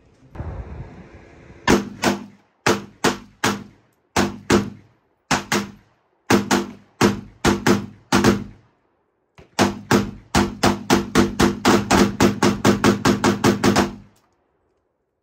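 Gunfire from a semi-automatic firearm: a run of sharp shots, many in quick pairs. After a short pause comes a fast, even string of about twenty shots at four to five a second, lasting some four seconds.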